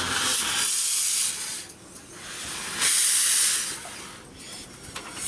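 Small industrial steam locomotive moving off slowly, with loud hissing rushes of steam venting low by the cylinders: a long one at the start, another about three seconds in, and a short one near the end.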